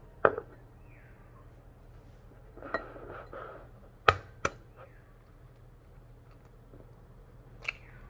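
Sharp clinks and knocks of a porcelain bowl and kitchenware handled on a counter: a loud knock just after the start, a short clatter around three seconds in, two sharp clinks about four seconds in. Near the end, one crack as an egg is tapped on the bowl's rim.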